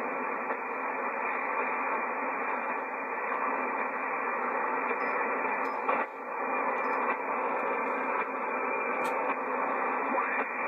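Yaesu FT-757GX HF transceiver putting out steady band noise and static through its speaker as it is tuned. The hiss dips briefly about six seconds in as the set switches from the 80-metre to the 40-metre band, and a single click sounds near the end.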